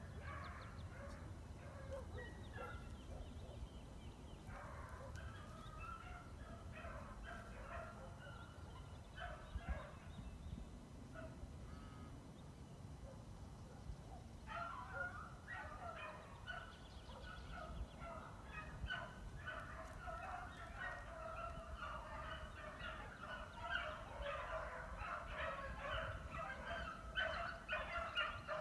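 A pack of beagles baying out of sight in the brush: scattered calls at first, then from about halfway a continuous chorus of many overlapping voices that grows louder toward the end.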